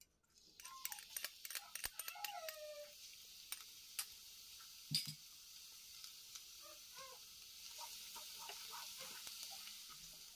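Minced garlic sizzling and crackling in hot cooking oil in a nonstick frying pan as it is stirred, frying on low heat until it turns golden; the sizzle starts about half a second in, once the garlic lands in the oil. A sharp knock sounds about five seconds in, and two short falling cries are heard in the first three seconds.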